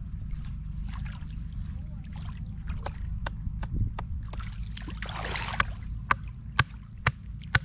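Wading and sloshing in shallow muddy floodwater, with a swell of splashing about five seconds in. Under it runs a steady low rumble of wind on the microphone, and a string of sharp clicks sounds every half second or so.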